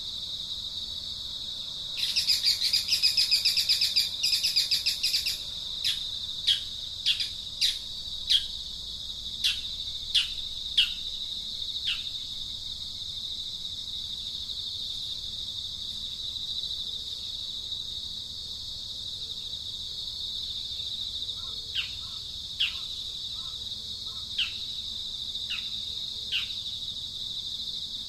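A bird calling a series of short, falling notes, roughly one a second, over a steady high insect drone. Near the start a loud, rapid rattling burst lasts about three seconds.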